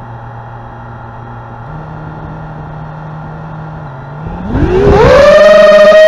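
A quadcopter's four E-max 2300Kv brushless motors spinning at idle after arming, a steady low hum that steps up slightly partway through. About four seconds in they spool up, a fast rising whine that becomes much louder and settles into a high steady tone as the throttle comes up for takeoff.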